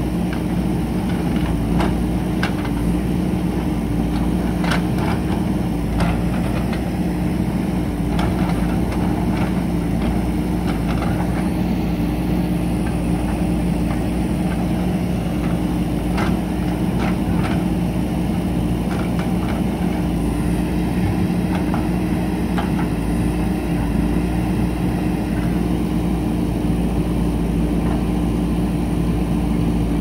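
JCB 3DX backhoe loader's diesel engine running steadily under working load, with scattered sharp knocks and scrapes of the backhoe bucket against the concrete and rubble of an old bridge, bunched in the first several seconds and again about halfway through.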